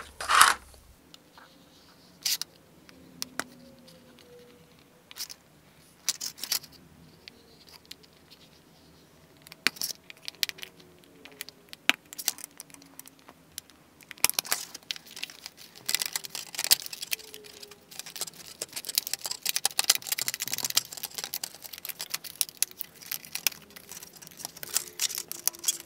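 Hobby knife scoring thin vacuum-formed plastic sheet on a cutting mat, giving scattered sharp clicks. Past the halfway point comes a dense run of crinkling and crackling as the cut plastic is bent and flexed by hand.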